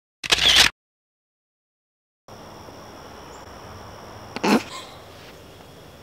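The sound is muted to dead silence, broken once by a short, loud burst of noise dropped in as an edited effect. Then the outdoor background returns with a faint steady high-pitched hum, and a brief loud noise comes about four and a half seconds in.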